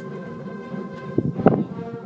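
Music with steady held notes, in the style of a brass band, and two short dull thumps about a second and a half in.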